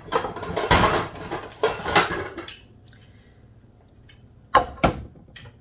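Kitchen dishes and utensils clattering as they are handled and moved about, for about two and a half seconds, then two sharp knocks in quick succession near the end.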